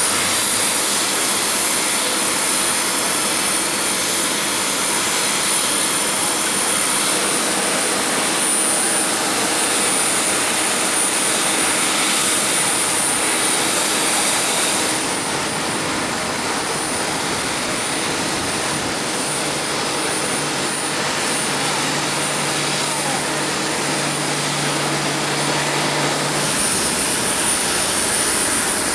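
Steady jet-turbine roar with a constant high whine, typical of a parked Boeing 767's auxiliary power unit running during ground handling. A low steady hum joins it for several seconds in the second half.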